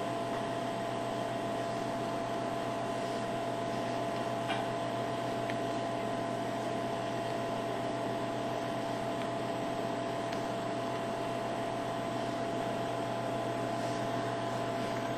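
Steady background hum with a few faint steady whining tones, like a fan or other running machine in a room.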